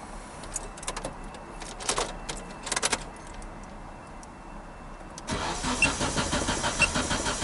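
A few light clicks, then about five seconds in the Nissan Primera P12's starter suddenly begins cranking the engine with an even, rapid rhythm, turning it over without it starting.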